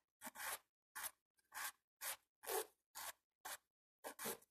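Hand nail file rasping back and forth on the edge of an acrygel nail extension in about nine short strokes, roughly two a second, thinning and refining the built nail.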